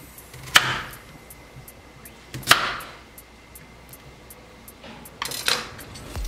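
A chef's knife chopping through a carrot onto a wooden cutting board: two sharp chops about two seconds apart, then a few more close together near the end.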